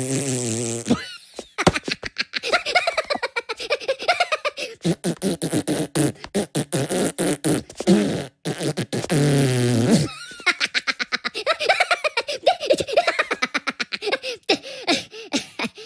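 Two cartoon Minions babbling and laughing in nonsense Minion talk, a rapid, choppy run of silly mouth noises and giggles.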